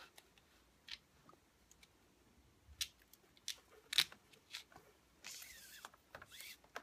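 Cord being handled and drawn through a pineapple knot woven on a mandrel: faint scattered clicks and rustles, the sharpest about four seconds in, then a longer rubbing hiss of cord pulled through the weave near the end.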